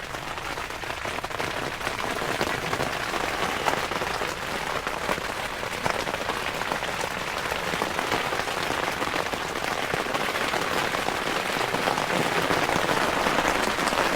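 Steady rain pattering on an inflatable tent's fabric roof, heard from inside the tent, growing a little heavier.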